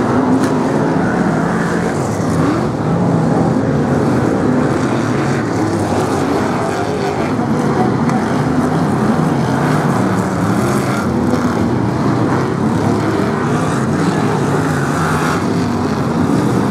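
A pack of BriSCA F1 stock cars racing, their V8 engines running loud all together, with several engine notes rising and falling as the cars pass and speed up.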